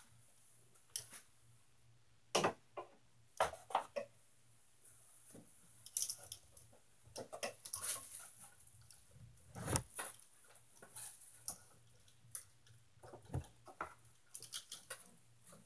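Irregular clicks, taps and short rustles, a few of them sharp and louder, with no steady rhythm.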